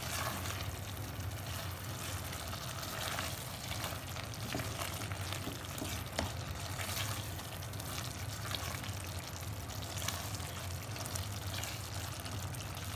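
A spatula stirring thick, creamy chicken and julienned ginger in a nonstick pot over the flame, with a steady low sizzle and scattered soft scrapes and taps of the spatula against the pot.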